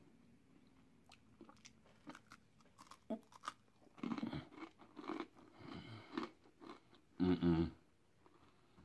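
Close-up chewing and crunching of a hard, crunchy oat granola bar, with a few faint clicks and then several crunches in a row. Near the end, a short hum of the voice.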